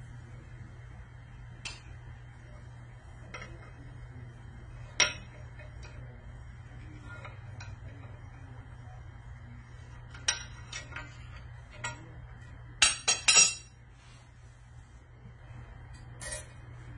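Sharp metallic clinks and taps of a valve spring compressor, retainers and valve keepers against a Cummins 24-valve cylinder head as a valve spring is compressed and swapped. The clinks come singly every few seconds, with a quick run of three louder ones a little past the middle, over a steady low hum.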